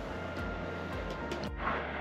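Quiet background music, with a brief break about three quarters of the way through.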